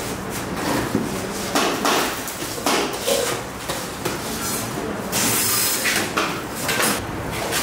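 Stainless steel plates and serving bowls clattering, with irregular knocks and scrapes of metal on metal as food is served out in a hall.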